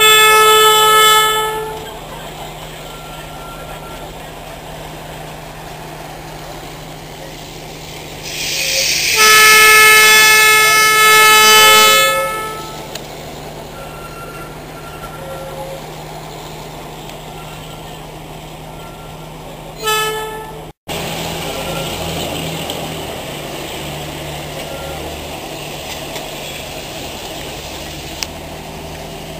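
Darjeeling Himalayan Railway narrow-gauge locomotive sounding its whistle: a short blast at the start, a long loud blast of about three seconds beginning some nine seconds in, and a brief blast near twenty seconds. The steady running noise of the moving train sits underneath.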